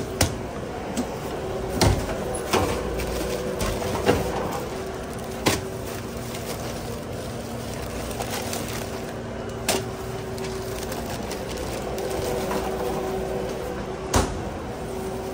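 Food-prep handling noises: sheet paper and a plastic tortilla bag being handled, with sharp knocks and clicks about seven times, over a faint steady hum.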